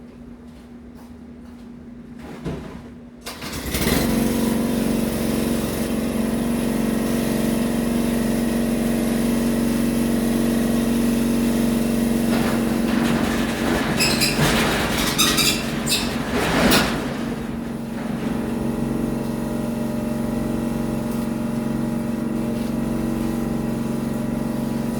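The motor of paint-spraying equipment starts about three seconds in and runs with a steady hum, with a few short bursts of spray-gun hiss around the middle.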